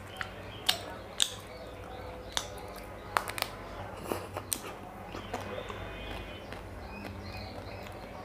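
Close-up eating sounds of a chocolate-coated ice-cream bar: sharp snaps as bites crack the chocolate shell, with chewing and wet mouth sounds. The snaps come every half second or so in the first half, then the chewing goes on more quietly.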